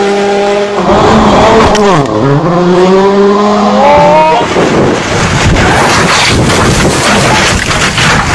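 Rally car engines at high revs on gravel stages: a held steady note, then revs falling sharply and climbing again. From about halfway the engine gives way to a loud rushing noise with many sharp knocks as a car slides through gravel and dust.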